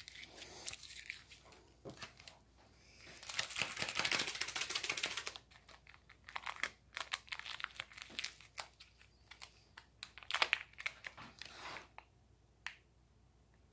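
Small MRE creamer and sugar packets being handled and torn open: a dense stretch of crinkling and tearing about three seconds in, then scattered rustles and clicks.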